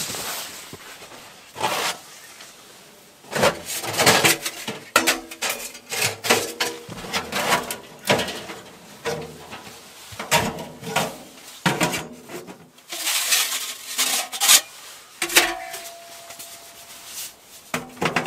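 Thin sheet-metal wood stove and stovepipe sections being handled and fitted together: repeated knocks, clatters and scraping rubs of light metal, with rustling of a foam sleeping pad at the start. Near the end a pipe section rings briefly.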